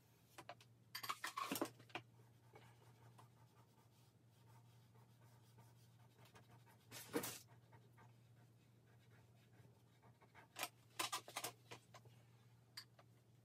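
Charcoal pencil scratching on drawing paper in short strokes, in a few brief clusters about a second in, around seven seconds and again between ten and twelve seconds, over a faint steady low hum.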